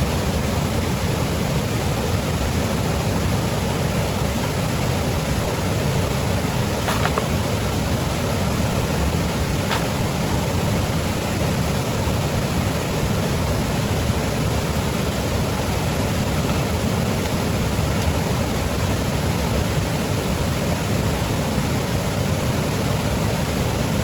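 Steady rushing of river water, even and unbroken, with a couple of faint clicks about seven and ten seconds in.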